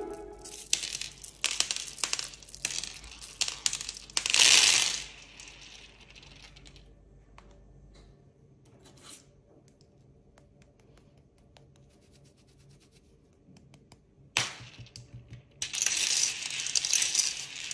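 Clinks and rattling of small hard objects in irregular bursts, then a lull, a sharp knock about fourteen seconds in, and a denser rattling hiss near the end.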